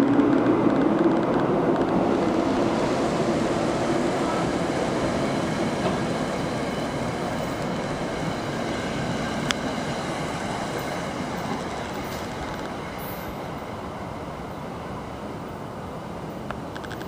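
NJ Transit bilevel commuter train pulling out of the station, its wheels and cars rumbling past and fading steadily as the rear cab car moves away, with one sharp click about halfway through.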